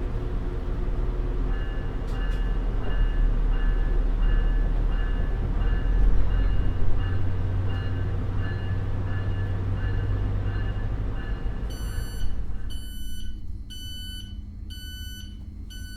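UP Express Nippon Sharyo diesel multiple-unit train running with a heavy low rumble, while an electronic beep repeats about twice a second. Near the end the rumble drops away and the beeps become louder and slower.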